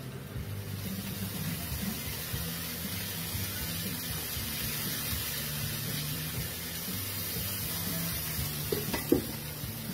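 Water sizzling and steaming on a hot Blackstone flat-top griddle: a steady hiss as it turns to steam around the broccoli.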